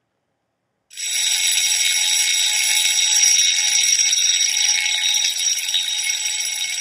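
Fire alarm ringing continuously, starting suddenly about a second in.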